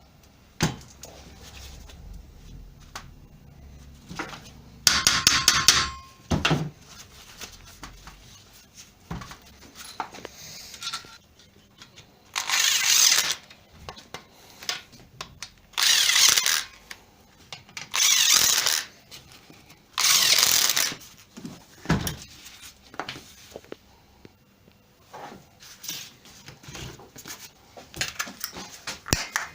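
Bench work on a car alternator: small metal clicks and knocks of parts and hand tools, with five loud bursts of about a second each from a power tool.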